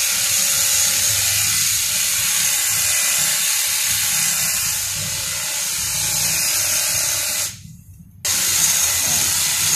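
Makita cordless hedge trimmer running steadily, its reciprocating blades cutting through a leafy shrub. It cuts out for under a second near the end, then starts again.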